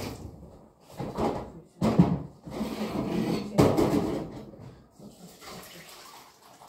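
Hand-washing at a kitchen sink: water splashing and sloshing in a plastic basin in several bursts, with two sharp knocks of the basin against the sink, the louder one about halfway through.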